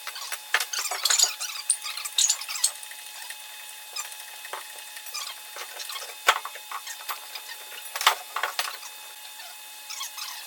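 Scattered squeaks, rubbing and small clicks of hand work on metal parts, with two sharper clanks about six and eight seconds in.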